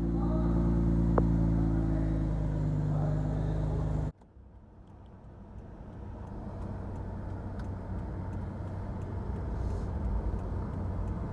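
Nissan 350Z's 3.5-litre V6 idling steadily at the exhaust for about four seconds. It cuts off abruptly and gives way to a low road-and-engine rumble inside a moving car's cabin, which grows slowly louder.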